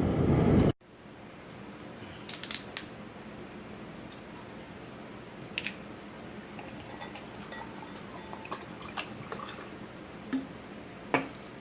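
Loud rain noise stops abruptly under a second in. Then a quiet room with a few light clicks and clinks of glassware, several quick ones near the start and single ones later.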